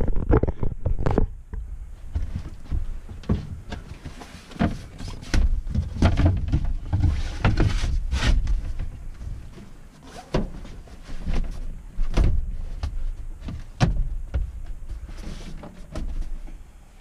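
Leatherette-covered sofa cushions and a plywood slide-out bed panel being moved back into place: an irregular run of knocks and bumps with rubbing and sliding, and a longer rubbing stretch about seven seconds in.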